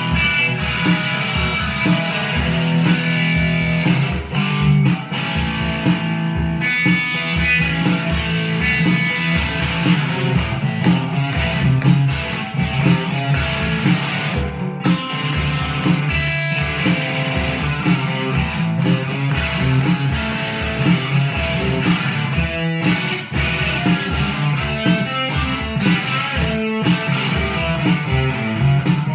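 Guitar music, with plucked and strummed notes over a steady low beat.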